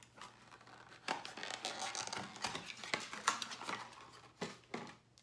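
A candle jar being worked out of its cardboard gift box: papery rustling and scraping with several sharp clicks and taps.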